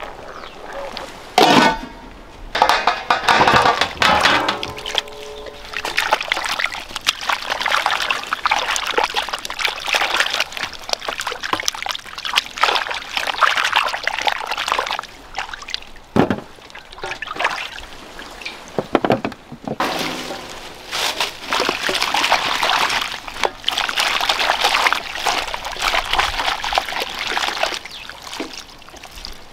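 Water splashing and sloshing as vegetables are washed by hand in a steel bowl of water, with a few sharp clanks of steel vessels.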